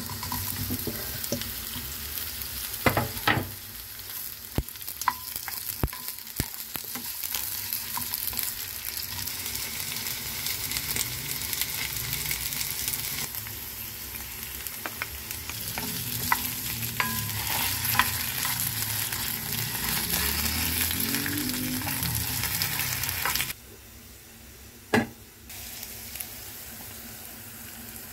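Carrot slices and potato chunks frying in oil in a nonstick pan, with a steady sizzle and scattered sharp clicks and taps of a plastic spatula against the pan. About three quarters of the way through the sizzle drops suddenly to a quieter level.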